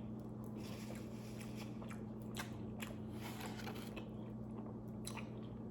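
A person chewing and biting into pizza close to the microphone, with a few short, sharp mouth sounds scattered through, over a steady low hum.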